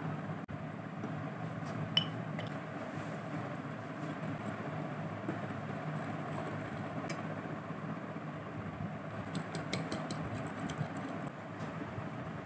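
A steady low background noise, with a few light clicks of a metal fork against a glass bowl and a ceramic plate while food is mixed. The clicks come once about two seconds in, once near the middle, and as a quick run of taps later on.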